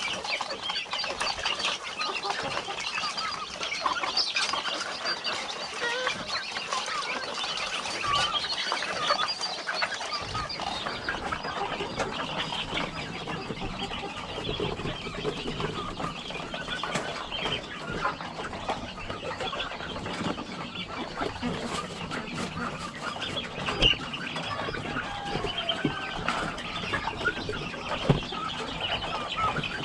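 A flock of village chickens (ayam kampung) clucking and calling continuously, with a couple of sharp knocks near the end.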